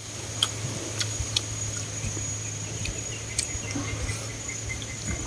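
Close-up eating sounds: rice noodles taken into the mouth and chewed, with a dozen or so short wet mouth clicks and smacks scattered through. Under them runs a steady high insect drone.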